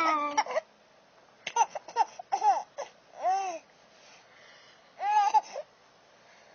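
A three-month-old baby laughing: short, high-pitched arching squeals in a few small bursts with pauses between, opening on the tail of a long falling vocal sound.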